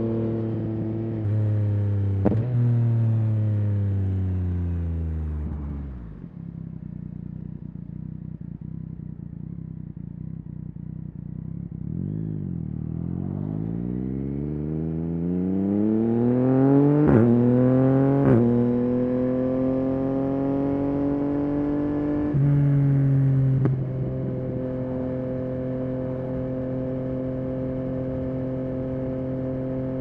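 Yamaha XSR900's 890 cc inline-triple engine through a Spark aftermarket exhaust. The note falls as the bike slows, sits at a low idle for several seconds, then climbs through two quick upshifts a second apart and settles into a steady cruise.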